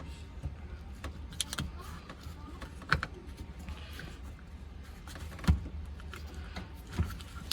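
Sharp metallic clicks and knocks, four or five spread a second or so apart, the loudest about two-thirds of the way through, as a parking-brake cable is worked and forced into its bracket hole.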